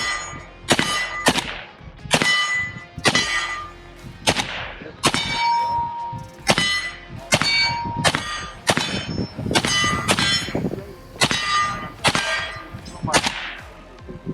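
Steel targets ringing as they are hit by gunfire: about twenty sharp strikes in quick succession, each followed by a ringing tone, the pitch changing from hit to hit as different plates are struck.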